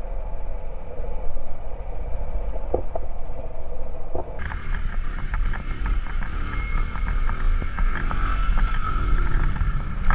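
Bajaj Boxer CT 100 single-cylinder four-stroke engine running while the motorcycle is ridden, with wind rumbling on the bike-mounted camera's microphone. About four seconds in the sound turns brighter and a higher engine note comes in, rising slowly.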